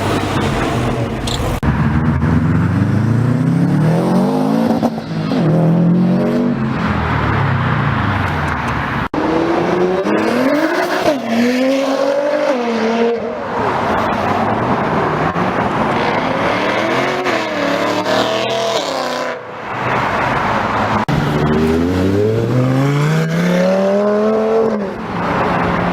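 Supercar engines accelerating hard, several times in succession. Each time the engine note climbs in pitch and then drops sharply, as at a gear change or a car passing.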